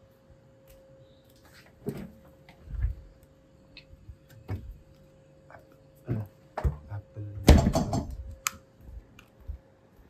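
A household refrigerator being opened and rummaged in by hand: scattered knocks and clicks from the door and shelves, with a louder clatter and rustle about seven and a half seconds in as fruit is taken out.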